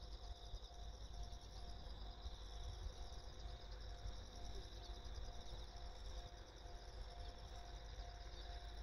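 Crickets and other insects trilling steadily in the trackside grass, with a faint tone repeating about twice a second and a low rumble underneath.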